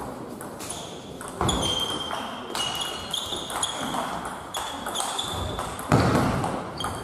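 Table tennis rally: the celluloid-type ball clicking off bats and table about every half second, with short high squeaks of players' shoes on the hall floor and one louder hit about six seconds in.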